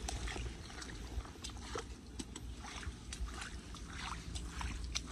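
Shallow floodwater on pavement sloshing, with many small, irregular splashes and drips over a low rumble.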